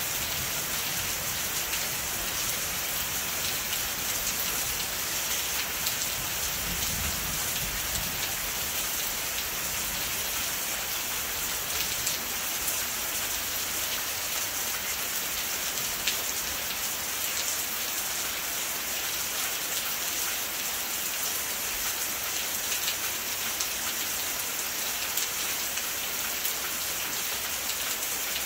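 Steady rainfall: an even hiss with scattered sharper drop ticks on nearby surfaces, and a faint low rumble about seven seconds in.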